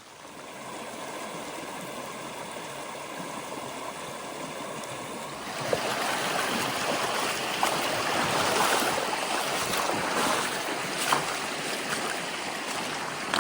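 Rushing creek water, growing louder about five seconds in, with a few sharp clicks over it.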